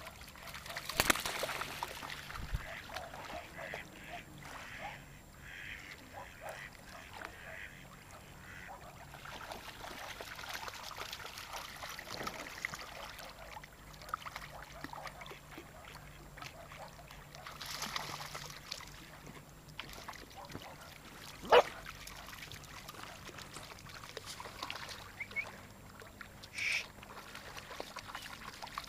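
Waterfowl calling now and then in short scattered calls, with a single sharp knock, the loudest sound, about two-thirds of the way through.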